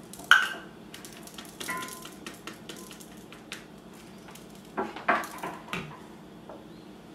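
Plastic coffee grinder cup knocked and tapped against the rim of a glass bowl to empty out freshly ground sunflower seed flour. A loud knock comes just after the start, then scattered light taps and clicks, then another cluster of knocks about five seconds in.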